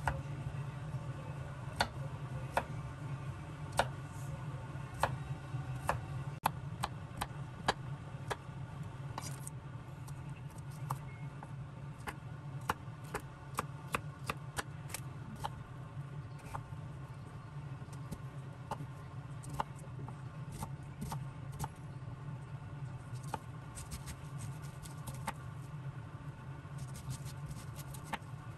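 Scattered light clicks and taps of small hard objects being handled, over a steady low hum.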